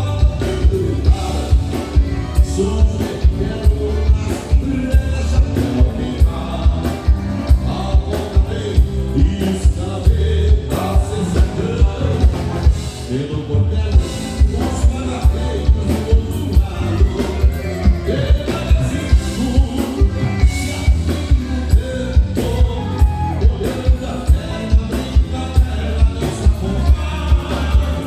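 Live gaúcho band music with singing over a steady beat, about two beats a second.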